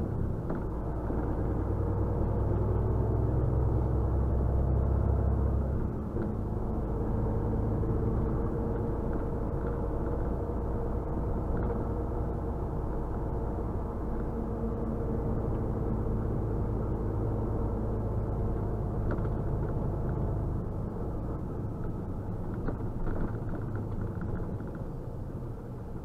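Semi-truck's diesel engine droning with road noise, heard from inside the cab as the truck drives through town. The deepest part of the engine sound drops about six seconds in, then the drone runs on steadily.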